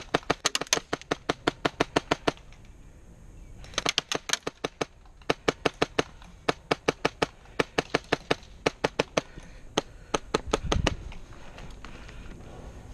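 Airsoft guns firing in rapid strings of sharp cracks, about eight to ten shots a second, in several runs with short pauses between them.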